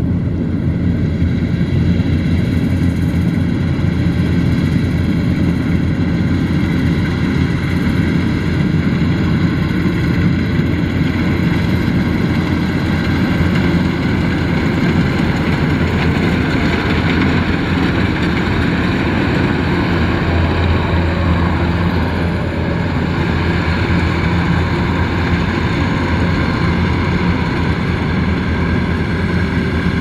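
Kubota crawler combine harvester cutting rice. Its diesel engine and its cutting and threshing machinery run together as one loud, steady drone with a low hum.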